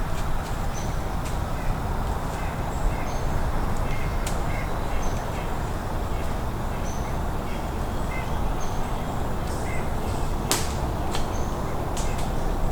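Outdoor ambience of small birds chirping in short, high calls scattered throughout, over a steady low rumble, with a few sharp clicks, the loudest about ten and a half seconds in.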